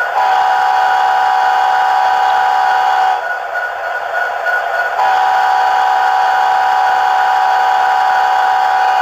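Model diesel air horn from the sound decoder of a Bachmann HO SD70ACe, played through its small onboard speaker. It gives one blast of about three seconds, then a longer second blast from about five seconds in. Each blast is a chord of several steady tones, and a fainter steady hum carries on in the gap between them.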